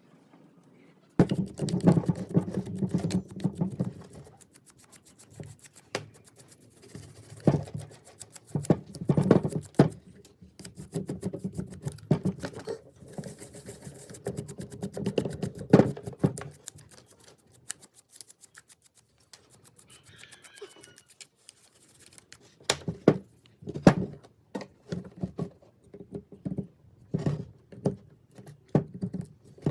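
Hand tools working on metal and plastic fan parts: irregular scraping, rubbing and clicking, starting about a second in, with a quieter lull around the middle.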